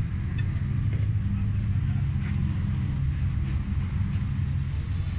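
Fiat 640 tractor's diesel engine idling steadily, with a low, even pulsing hum. A few faint clicks sound over it near the start and about two seconds in.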